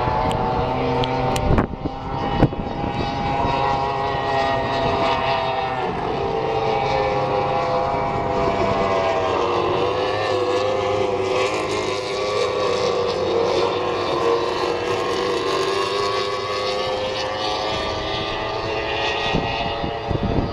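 Racing hydroplanes' engines running hard at high revs, a steady whine whose pitch drifts slowly up and down as the boats race past. There are two short knocks about two seconds in.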